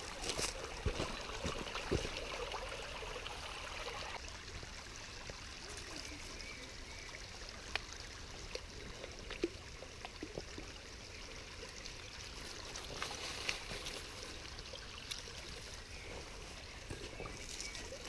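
Quiet trickling of a shallow forest stream, with a few faint clicks scattered through it.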